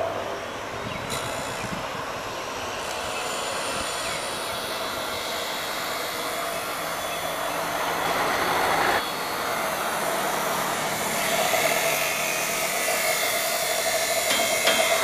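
Steady outdoor background noise, an even rushing with no clear source, changing abruptly about halfway through. A few sharp knocks come in near the end.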